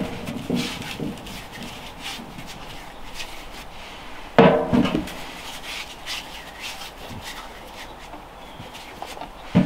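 Potatoes being handled and put into a galvanized metal washtub: quiet rubbing and shuffling of potatoes, with a louder clatter into the tub about four and a half seconds in and another near the end.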